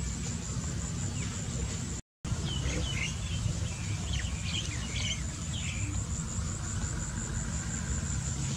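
Insects trilling steadily in a high, pulsing tone, with a run of short bird chirps from about two to six seconds in, over a steady low rumble. The sound cuts out completely for a moment about two seconds in.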